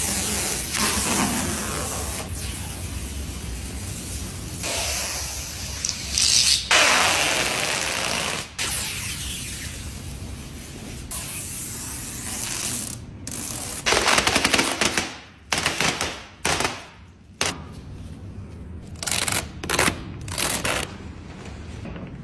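Protective adhesive film and tape being peeled off a car's paintwork: a continuous crackling rip, then several short, quick pulls with pauses between them in the second half.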